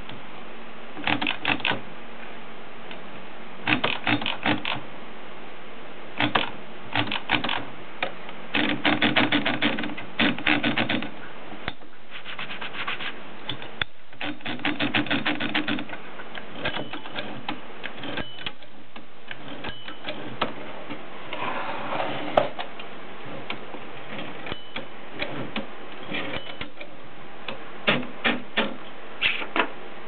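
Adler Tippa typewriter's carriage and platen mechanism being worked by hand: runs of rapid mechanical clicks broken by pauses, with a short scraping stretch about two-thirds of the way in.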